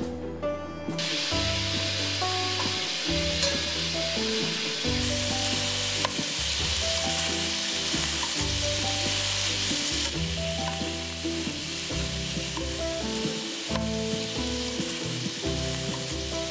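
Cubes of pork belly sizzling as they brown in hot oil in a stainless steel sauté pan, turned with metal tongs. The sizzle grows louder about five seconds in.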